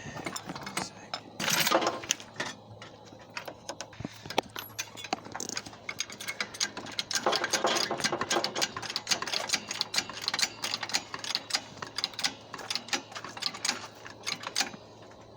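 Hand tools clicking and rattling against metal in quick, irregular strokes, typical of a ratchet and wheel brace on a car wheel. Louder rushes of noise come about one and a half seconds in and again from about seven to nine seconds.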